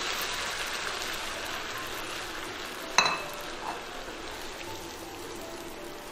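Beef, king oyster mushroom and green pepper stir-fry sizzling in a stainless steel pan on an induction cooker, the hiss slowly dying down. A single sharp clink about three seconds in.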